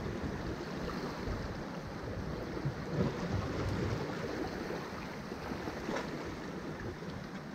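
Small waves sloshing and washing against the rocks of a jetty, with wind buffeting the microphone.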